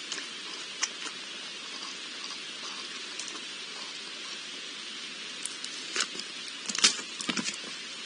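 A wild boar rooting and moving at the edge of a pool: scattered taps and knocks, denser and louder near the end as it comes close, over a steady hiss.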